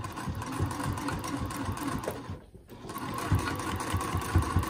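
Sewing machine stitching a seam along the folded edge of a cloth mask: a steady motor hum with the needle going up and down in a fast, even rhythm. It stops briefly about halfway through and then starts stitching again.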